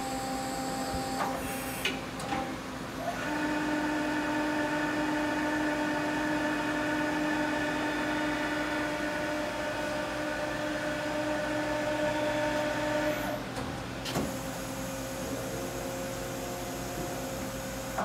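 Doosan Puma 400MB CNC lathe in operation. A few clicks and short whirs in the first two seconds, then a steady electric whine of several tones for about ten seconds that cuts off suddenly, a click about a second later, and a quieter machine hum.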